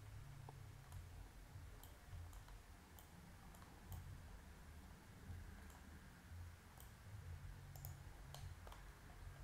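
Faint computer mouse clicks at irregular intervals, over a low steady hum.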